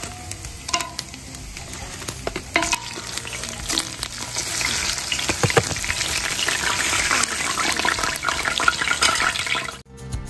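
Pulao ingredients frying in hot oil in a large pot while being stirred, with the spoon knocking against the pot a few times. The sizzling grows louder about four seconds in and cuts off suddenly near the end.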